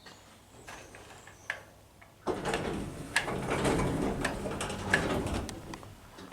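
Hydraulic lift doors (Otis 2000H) sliding, a louder rattle with many clicks and clunks starting about two seconds in and fading away near the end.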